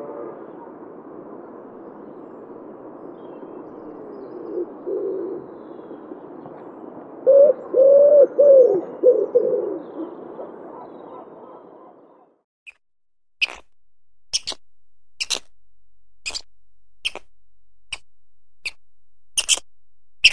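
Domestic pigeons cooing low over a steady hiss: a short coo about 5 s in, then a run of louder coos from about 7 to 10 seconds. After a cut about 12 s in, a series of short, sharp high clicks or calls comes about once a second.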